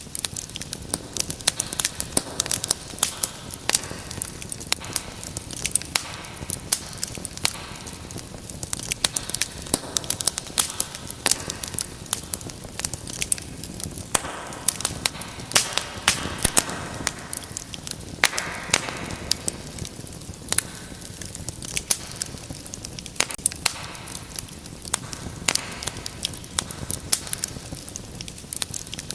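Wood fire in a fireplace crackling and popping: many sharp irregular pops over a steady low rush of flame, with occasional brief hissing.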